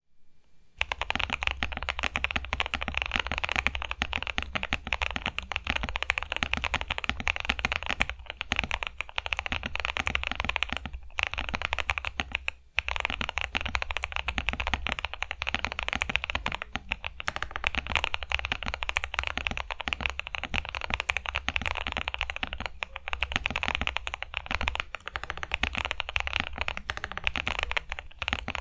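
Continuous fast typing on a plateless KBD67 Lite R3 mechanical keyboard with Boba U4T tactile switches lubed with Tribosys 3203, with PE foam and case foam inside: a dense run of keystroke clacks. The typing breaks off briefly about eight, eleven and twelve and a half seconds in.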